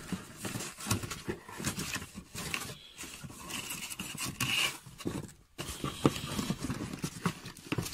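Hands rummaging in a cardboard packing box: cardboard scraping and plastic-bagged parts rustling and knocking in irregular bursts, with a thin high squeak for a couple of seconds midway.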